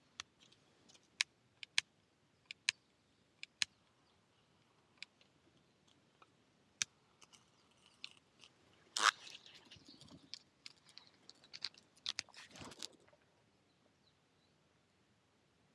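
Small wood campfire crackling, with scattered sharp pops and snaps and a louder run of crackling about nine seconds in and again near thirteen seconds.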